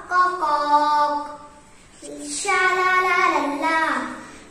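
A young boy singing a song on his own, in two phrases with held notes and a short breath pause between them.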